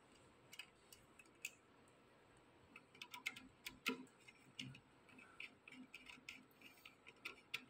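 Faint, irregular clicks and ticks of a screwdriver working the screw terminals of a pump controller's terminal block as wires are loosened and fitted, busier in the second half.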